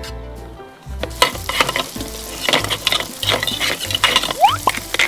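A sizzling, crackling frying sound as the toy sweet potato is stirred and scraped in a plastic toy frying pan with a spatula. Background music plays underneath, and a short rising whistle sounds near the end.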